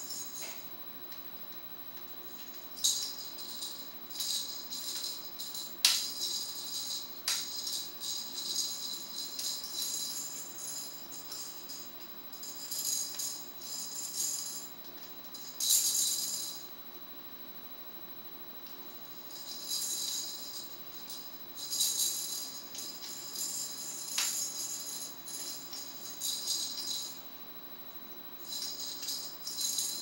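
Small plastic toy maraca shaken by a Timneh African grey parrot in its beak, rattling in irregular spells of one to several seconds with short pauses between. A few sharp knocks stand out among the shakes.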